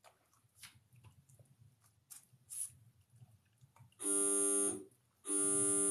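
A wire fox terrier eating dry kibble from a steel bowl, with faint crunching and clicks. About four seconds in, a loud electronic buzzer sounds twice, each buzz steady and under a second long.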